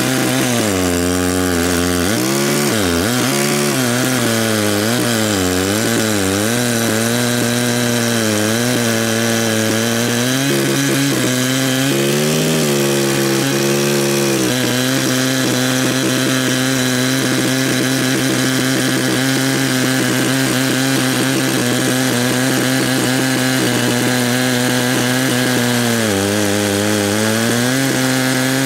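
Ported Echo CS-590 two-stroke chainsaw with a 42-inch bar running at full throttle, ripping lengthwise through a white oak log in a chainsaw mill. The engine pitch wavers up and down as the load on the chain varies for about the first half, then holds steady, dipping briefly and recovering near the end.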